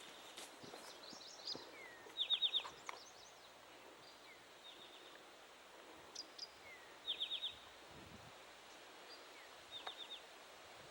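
A songbird singing the same short phrase four times, about every two and a half seconds: a brief falling note, then a quick run of four or five high notes. A few fainter chirps come in between.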